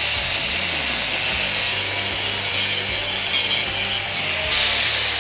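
Angle grinder running under load, its disc grinding into the steel of an anvil to chase out a crack: a steady high whine with grinding hiss, easing off briefly about four seconds in.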